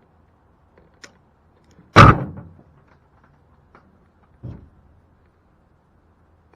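A loud slam about two seconds in, followed by a softer thump a couple of seconds later, with a faint click just before the slam.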